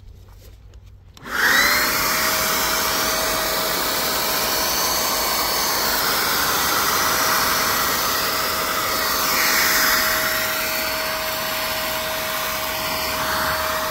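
An electric motor-driven machine spins up about a second in and runs steadily, with a loud rushing air noise and a steady whine.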